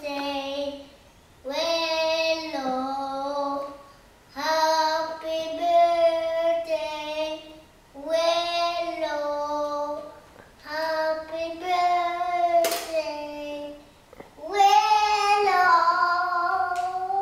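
A young boy singing in drawn-out phrases with short breaks between them, with one sharp click a little past the middle.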